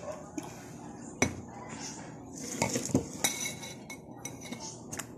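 Metal spoon and fork clinking against a plate of rice while eating: a handful of sharp clinks, the loudest about a second in and a quick cluster in the middle.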